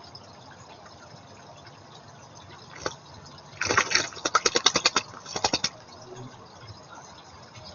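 A small bird bathing in a garden pond: a single splash, then a quick run of splashes lasting about two seconds from a little before halfway.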